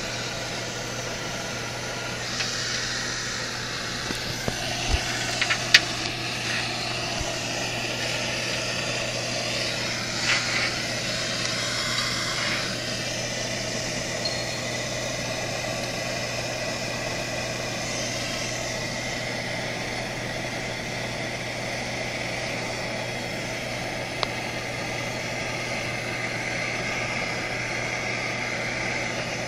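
Hand-held gas torch burning with a steady hiss as its flame heats a copper pipe joint for soldering, over a steady low hum, with a few light clicks and taps on the metal.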